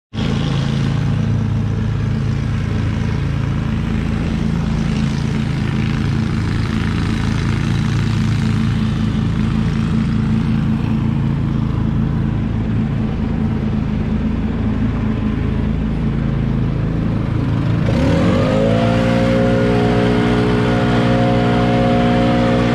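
Ride-on mower engine running steadily at low speed, then throttled up about eighteen seconds in: its pitch rises smoothly and holds at a steady higher tone.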